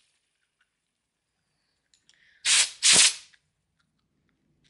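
Two short blasts of compressed air hissing from an air nozzle aimed at a fidget spinner, one right after the other, about two and a half seconds in.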